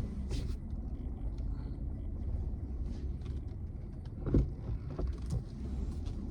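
Low steady rumble of a car moving slowly while it is being parked, heard from inside the cabin. A single sharp thump comes a little over four seconds in, followed by two lighter knocks.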